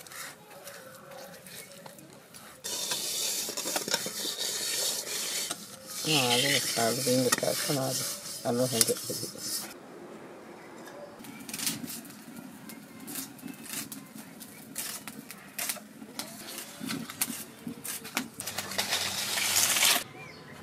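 Hand-grinding of spices on a stone slab with a stone roller: rough scraping and knocking of stone on stone, with clinks and scrapes of utensils. A voice is heard briefly in the middle.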